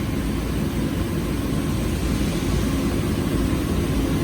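Steady low machinery drone with an even hiss above it, unchanging throughout, typical of a powered-on CNC lathe and the machine shop around it.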